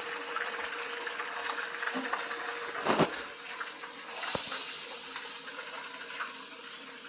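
Water running steadily from a kitchen tap, with a knock about three seconds in and a short, brighter hiss a little after four seconds.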